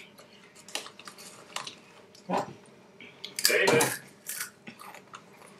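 Takis chips being crunched and handled: scattered short crunches and rustles, with a louder burst a little past the middle.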